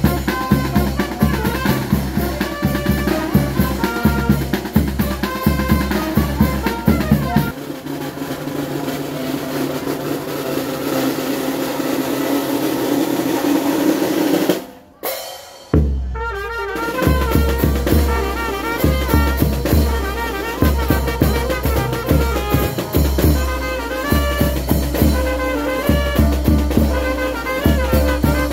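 A cimarrona street band playing a festive tune: bass drum and snare drum keep a steady pounding beat under a wind-instrument melody. A little over a quarter of the way in, the drums stop for several seconds and the melody carries on alone. After a brief dropout about halfway, the full band comes back in.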